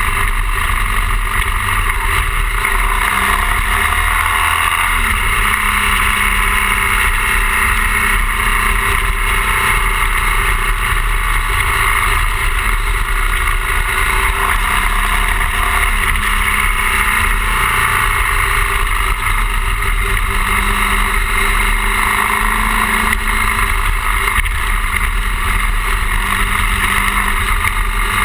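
BMW R 1200 GS boxer-twin engine running steadily under way, with constant wind and road rush over the microphone.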